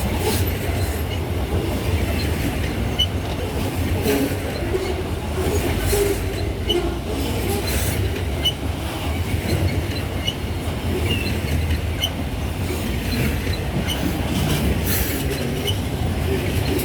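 Loaded grain freight train rolling past, a steady rumble of steel wheels on rail with irregular clicks over the rail joints and brief high wheel squeaks.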